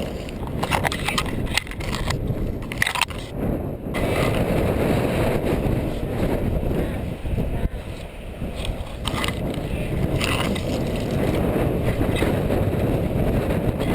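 Strong wind buffeting the camera microphone, a steady low rumble, with a few short knocks and rustles scattered through it.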